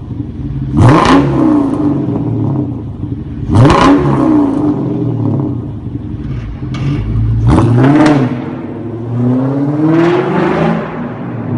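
Mercedes CLK500 V8 with a straight-pipe, decatted exhaust being revved: three quick blips up and back down, then a slower, longer climb in revs near the end before it drops back.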